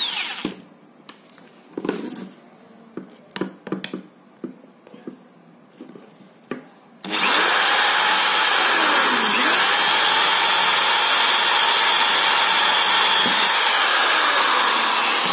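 iBell corded electric drill-driver boring through a strip of wood with an 8 mm bit. The motor winds down at the start, then come a few seconds of light knocks and clicks as the wood is handled and set on a pair of pliers. About 7 s in the drill starts again and runs steadily without stalling as the bit goes through the wood.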